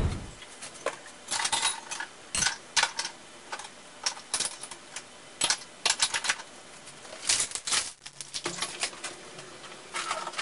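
Quick, irregular clatter and knocks of dishes, utensils and cupboard doors as a kitchen is tidied, many short sharp clicks in a row.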